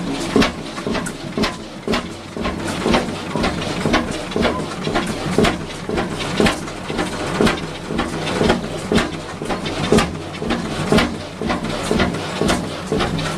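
Antique stationary engine running, firing with a sharp, slightly uneven beat of about two knocks a second over a steady hum.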